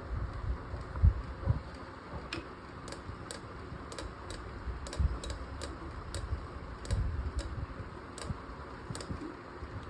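Irregular light clicks, about one every half second, with a few dull knocks over a steady low hum.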